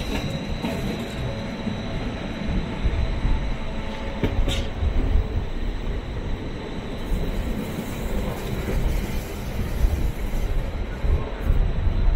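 Bernina Express train running slowly through a station on curving track, heard from aboard: a steady rumble of wheels on rail with a thin, high wheel squeal held throughout. A single sharp click sounds about four and a half seconds in.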